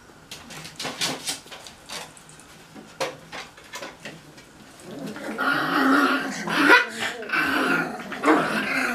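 Cocker spaniel puppies play-growling as they pull on a rope toy in a tug-of-war. It starts with scattered light clicks and taps, and about five seconds in it breaks into loud, sustained rough growling that runs on with short gaps.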